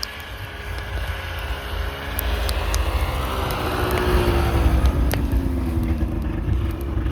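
A motor vehicle driving past close by, growing louder over several seconds, its engine note falling in pitch as it goes by.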